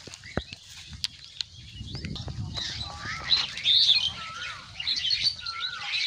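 Small birds chirping and calling. From about halfway in, one short whistled call that rises and falls is repeated every second or so. In the first couple of seconds there are a few light clicks and a rustle of plastic litter being handled.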